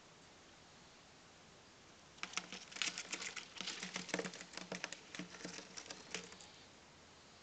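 Rapid scratching and scrabbling on the paper-lined floor of a wooden box as a hand reaches in among budgerigars and handles them. The patter starts about two seconds in, runs for about four seconds, then stops.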